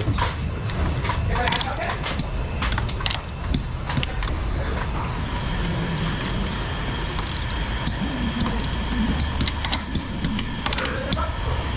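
Scattered sharp metallic clicks and clinks, like hand tools and parts being handled during strut mount work, over a steady low rumble.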